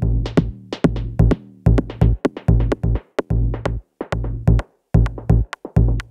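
Indian fusion background music with a steady electronic drum beat and deep bass notes.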